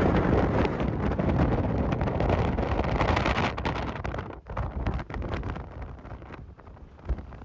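Strong gusting wind buffeting the microphone: loud and rough for the first few seconds, then easing into weaker gusts.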